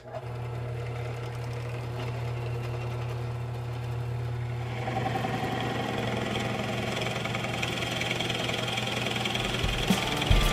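Drill press motor running steadily with a 1-inch Forstner bit. About halfway through, the bit starts boring into the wooden handrail, adding a cutting noise over the motor hum.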